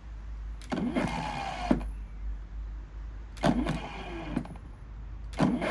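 Ferrex 40V cordless lawnmower's three-phase electric motor and blade run in short bursts: two of about a second each and a third starting near the end. Each is a whine that rises as the blade spins up and falls as it coasts down. The blade is spinning backwards, which the owner suspects is a factory error with two motor wires swapped.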